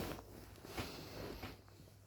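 A sleeping person's snoring breath: a loud snore trails off at the start, then a softer, noisy breath comes a little under a second in.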